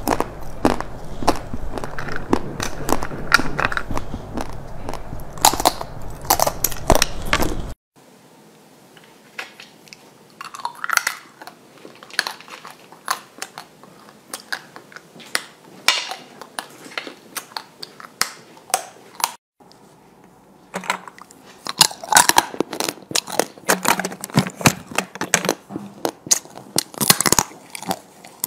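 Close-up biting and chewing of hard frozen chocolate sweets: sharp cracks and crunches as pieces snap between the teeth, coming in irregular clusters. A low hum under the first part stops abruptly about a quarter of the way in, and the crunching is densest near the end.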